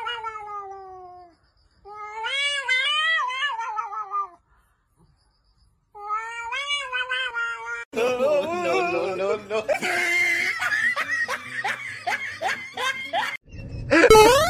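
A cat caterwauling: three long, drawn-out yowls that bend up and down in pitch. About eight seconds in, a busier stretch of overlapping sounds with laughter follows.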